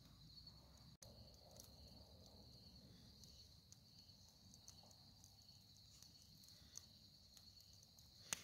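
Near silence: crickets chirring faintly and steadily at a high pitch, with a few faint pops from a wood fire.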